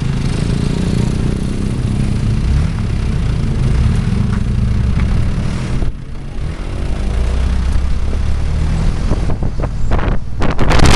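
Engine of a moving vehicle running under way, with road noise. About six seconds in the engine drops off briefly, then picks up again, and near the end wind buffets the microphone as speed rises.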